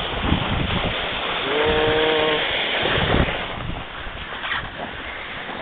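Steady rushing hiss of wind on the microphone and the dog sled sliding over the snow trail. About one and a half seconds in, a short, steady high-pitched tone sounds for under a second.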